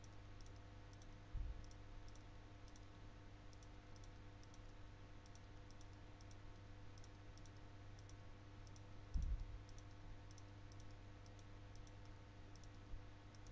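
Faint, quick clicks of a computer being operated, about two or three a second, over a low steady hum. Two dull thumps, one about a second and a half in and a louder one about nine seconds in.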